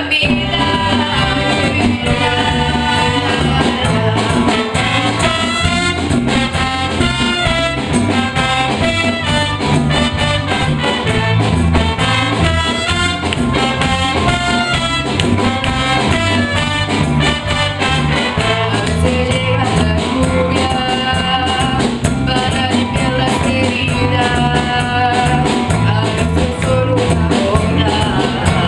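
Latin-style music with brass instruments over a steady, repeating bass beat, played without a break.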